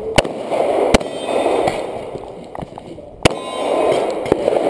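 Glock 21 .45 ACP pistol fired in a USPSA stage: three loud shots, about a second apart at first and then a longer gap before the third, with fainter shots between, over a steady rushing noise.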